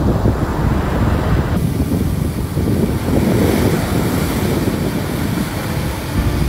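Wind buffeting the phone's microphone over waves breaking and washing up on a sandy beach.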